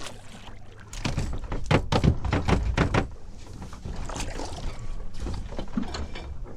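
A quick run of sharp knocks and thumps on a small fishing boat, loudest in the first half, with wind and water noise around them.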